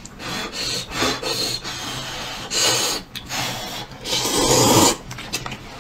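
A person slurping instant noodles: a series of short, hissing slurps, the longest one near the end.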